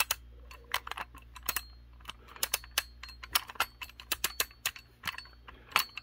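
Fichet Monocommande safe lock being turned step by step to its opening combination, its mechanism clicking as it goes: an irregular run of sharp clicks, a few a second.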